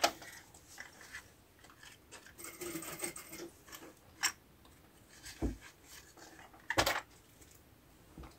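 Faint rustling, then three light knocks about a second apart: small objects being handled on a hard surface.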